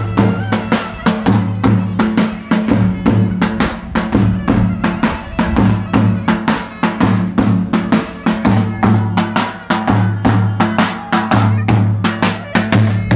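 Live Turkish folk music: a davul bass drum beaten in a fast, steady rhythm, with a clarinet playing the melody over it.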